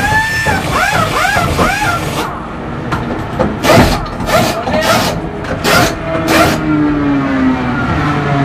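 Pneumatic impact wrenches on a pit stop: short whines that spin up and fall away in the first two seconds, then a run of about five sharp rattling bursts of the air guns on the wheel nuts. The race car's engine runs at idle underneath.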